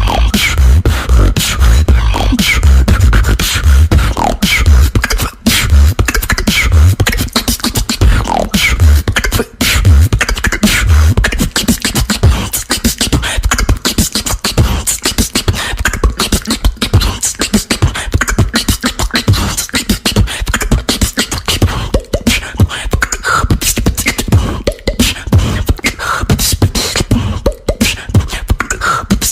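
A person beatboxing without pause: deep bass kicks and sharp clicking snares and hi-hats in quick succession, with short gliding vocal sounds now and then.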